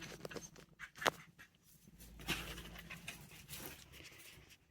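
Faint handling noises: scattered light clicks and rustles, with a sharper click about a second in.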